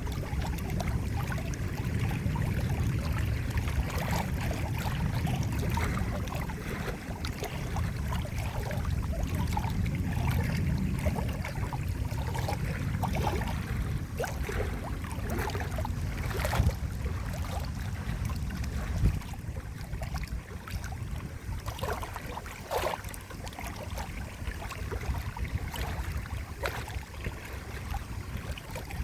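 Running water: a steady low rumble with scattered small splashes and drips over it. The low rumble eases about two-thirds of the way through.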